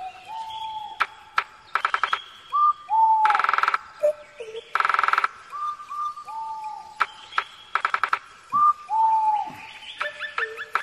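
Birds calling: a busy run of short whistled notes that dip in pitch, broken by harsh buzzy rattles about every second or two.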